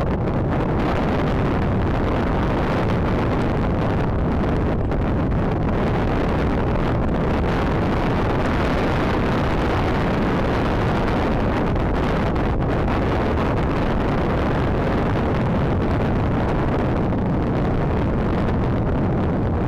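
Steady wind noise buffeting the camera's microphone, a dense low rumble that does not change.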